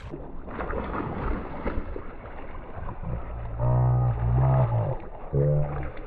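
Water splashing as a hooked speckled trout thrashes at the surface. From just past halfway come three deep, drawn-out pitched sounds, each about half a second long and louder than the splashing.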